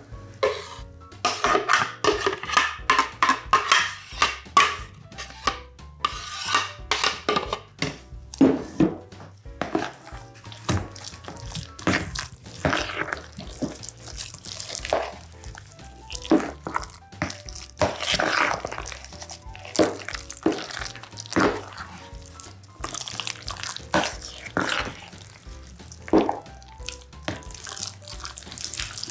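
Large metal spoon stirring thick homemade mayonnaise into cooked diced potatoes in a plastic bowl: irregular wet squelching and scraping strokes, after the cream is poured in from the blender jug.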